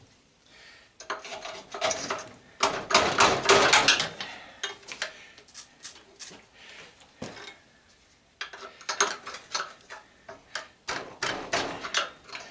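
Metal parts and hand tools clinking and knocking against each other in irregular clusters, with quieter gaps around 5–8 s.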